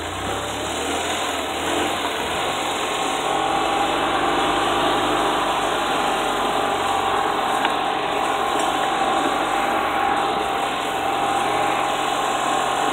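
Golf cart driving along at low speed, its motor running steadily under a continuous whine and the noise of the moving cart.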